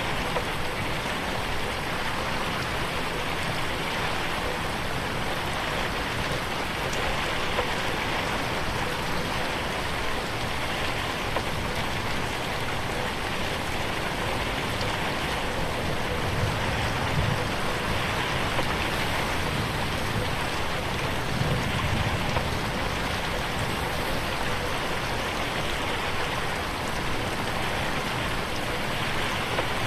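Steady rain pattering on a window pane, heard as a continuous even hiss of drops, mixed in 8D so that it pans around the listener. A low rumble swells briefly twice near the middle.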